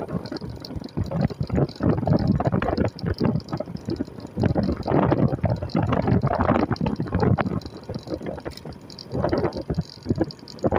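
Water splashing and sloshing in irregular surges.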